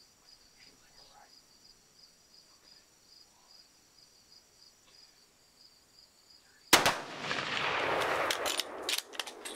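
Insects chirping in a steady pulsing rhythm, then a sudden loud gunshot about seven seconds in. It is followed by a couple of seconds of loud rushing noise and several more sharp shots in quick succession near the end.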